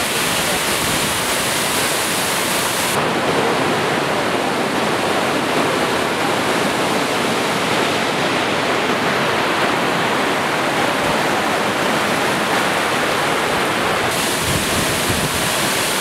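Mountain waterfall and the rocky stream below it: a steady rush of falling and flowing water. The sound turns duller about three seconds in and brighter again near the end.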